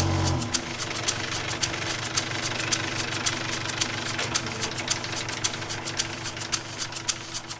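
Boat's inboard diesel engine running steadily at idle, with a clatter of sharp ticks over its low hum.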